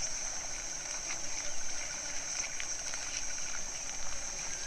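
Quiet natural ambience: a steady high-pitched hiss with a few faint scattered clicks and rustles.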